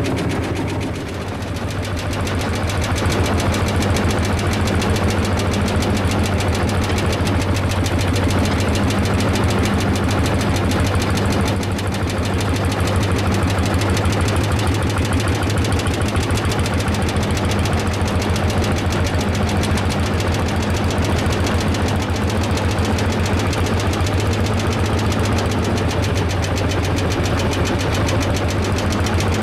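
Single-cylinder two-stroke hot-bulb semi-diesel tractor engine running steadily while the tractor drives, a fast, even knocking beat heard close up from aboard the tractor.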